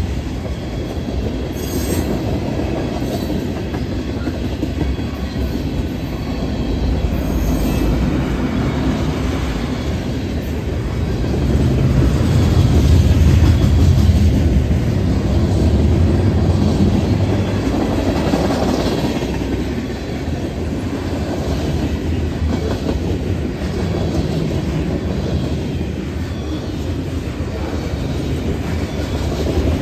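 Freight train cars (tank cars, gondolas and covered hoppers) rolling past close by on steel wheels, a steady rumble that swells for a few seconds about halfway through.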